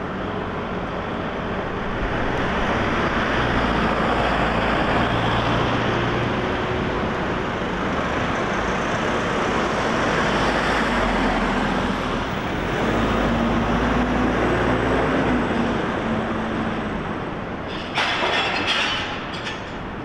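Steady rumble of heavy vehicles passing on a city street, swelling about two seconds in, with a short burst of sharp clattering near the end.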